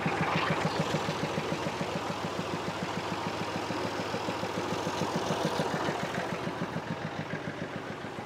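John Deere 830's two-cylinder diesel engine running with an even, rapid popping beat, its PTO engaged to drive a grain auger. The sound grows gradually quieter over the last couple of seconds.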